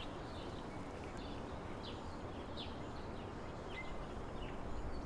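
Outdoor ambience: a steady low hiss of background noise, with about five short, faint bird chirps scattered through it.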